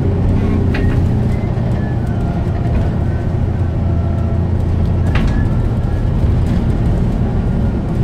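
Alexander Dennis Enviro400 double-decker bus heard from inside the lower deck while moving: a steady low engine and road drone, with two brief sharp sounds about a second in and about five seconds in. The uploader cannot identify the strange noise.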